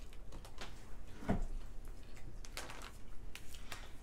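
Eating sounds at a table: scattered small crunches and clicks of people chewing and picking apart fried hot wings and catfish by hand, with light plate noise, and one louder knock about a second in.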